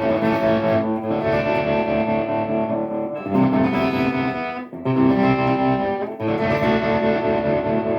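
Overdriven electric guitar chords ringing through a Fender Tonemaster Twin Reverb amp with its tremolo at intensity 7. The chord changes three times, with short breaks about three, five and six seconds in.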